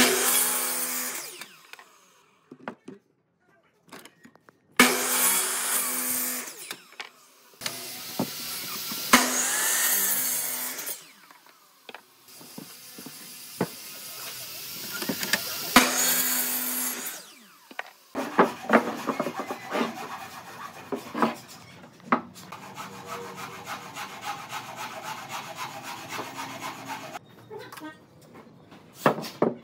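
Woodworking tools on wood. First come four short runs of a power tool, each a second or two long with a steady hum under loud hiss. Then follow about nine seconds of quick, irregular strokes on wood, and a few knocks near the end.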